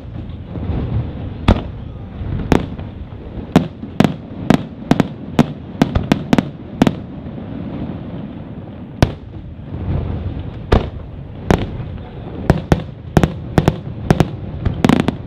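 Aerial fireworks shells bursting in an irregular string of sharp bangs, about two dozen in all, coming thick and fast in two flurries, with a steady low rumble underneath.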